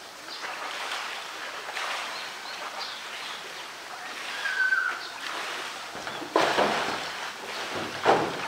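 Pool water sloshing and splashing as a polar bear shoves and bites at a floating blue plastic drum, with two louder splashes about six and eight seconds in. A brief high squeak sounds near the middle.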